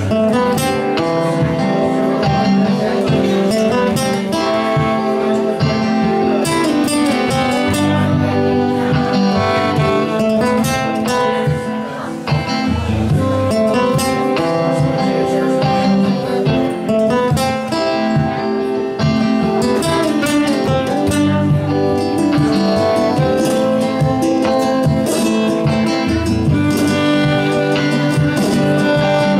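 Live Spanish-flavoured jazz jam: acoustic guitar strummed in a steady rhythm under a saxophone playing a melody of held notes.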